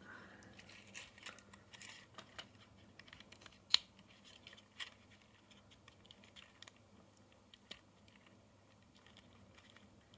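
Faint small plastic clicks and ticks as the pins of a TOMIX model pantograph are pressed into holes in a plastic N-gauge car roof and the car body is handled, with one sharper click about four seconds in.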